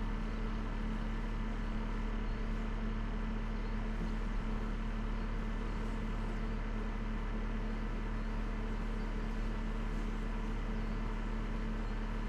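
Dacia Solenza car engine running steadily, a constant hum with a few steady tones that hold the same pitch throughout.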